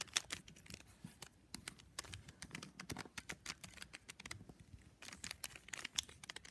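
Stickerless 3x3 Rubik's cube being turned by hand: a faint, quick run of irregular plastic clicks and clacks as the layers are twisted through a move sequence.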